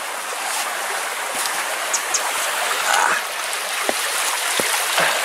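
Shallow creek running over gravel: a steady rush of water, with a few soft knocks in the second half.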